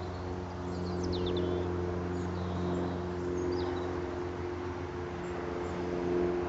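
A steady low hum with a few short, high bird chirps about one to four seconds in.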